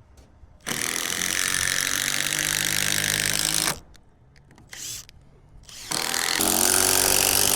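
Cordless drill driving screws into wood, in two runs of about three seconds each, the motor running steadily under load.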